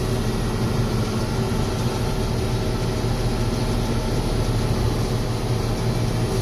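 John Deere 6620 combine running steadily while harvesting soybeans: an even, unchanging drone of the diesel engine and threshing machinery.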